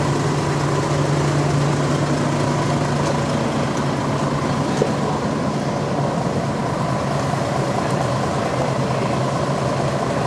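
Idling tour coach engines: a steady low hum over a constant mechanical rumble that does not change.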